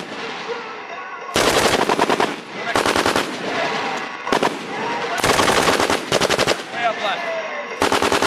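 Belt-fed light machine gun firing about six short bursts of automatic fire, each a rapid string of shots lasting a quarter to most of a second.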